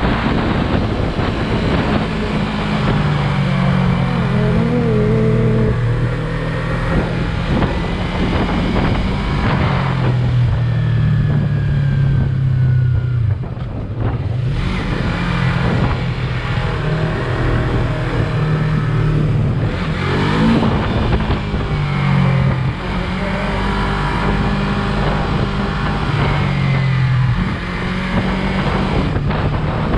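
Yamaha YZF-R3's parallel-twin engine running on the move, its note stepping up and down with the throttle. The level drops briefly about halfway through, then the revs rise again.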